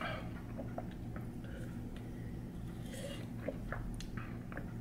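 Faint mouth sounds of someone swallowing and smacking the lips after a sip of milkshake, a few small soft clicks, over a low steady room hum.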